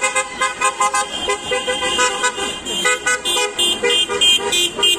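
Car horns tooting in quick repeated bursts, several horns of different pitch overlapping, from slowly passing cars.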